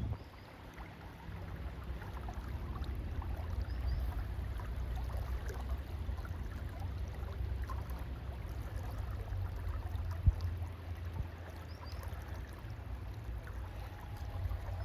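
Flowing river water, with a steady low rumble on the microphone and a single sharp knock about ten seconds in.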